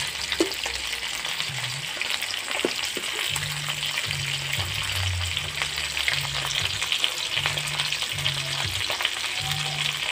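Fish pieces sizzling in hot oil in an iron kadai over a wood fire, a steady frying hiss with many small crackles and pops.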